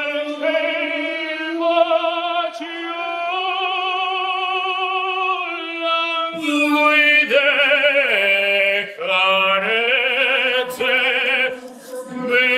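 A man singing solo and unaccompanied, in long held notes with a wavering vibrato. The melody drops lower about two-thirds of the way through and breaks off briefly near the end.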